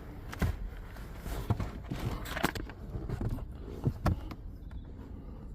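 A few light, scattered knocks and clicks, about one a second, of someone handling a car door before closing it.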